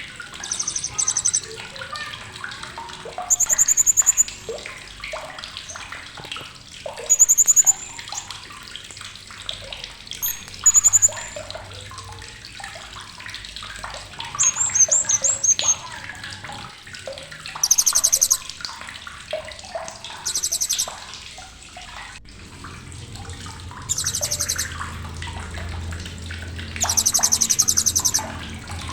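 Srindit (hanging parrot) giving sharp, rapid rattling chatter calls in about nine short bursts, over softer background chirping.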